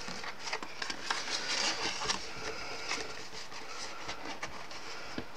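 Stiff 240 gsm card rustling and crackling as hands bend and crease die-cut panels along their fold lines, with many small clicks and taps.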